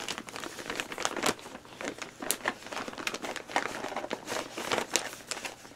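Packaging crinkling and rustling as it is handled and unwrapped by hand, an irregular run of sharp crackles.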